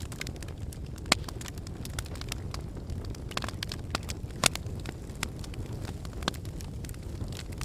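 Wood fire burning in a fireplace: a steady low rumble of the flames with irregular sharp crackles and pops, two of them louder, about a second in and midway through.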